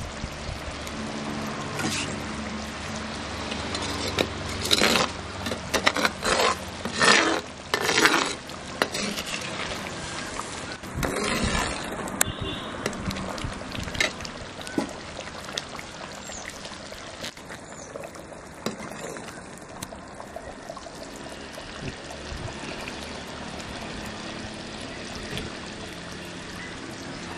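Curry simmering in a clay pot over a wood fire while a metal ladle stirs and scoops it, with a run of loud splashing, scraping bursts between about four and twelve seconds in, then a steady quieter bubbling.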